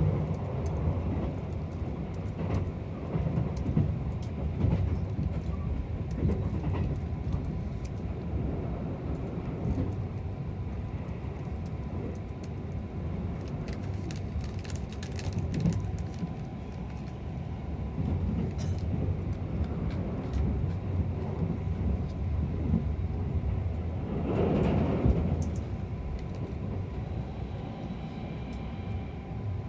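Running noise of the limited express Kuroshio, an electric train, heard from inside the passenger car: a steady rumble of wheels on rail, with a brief louder surge near the end.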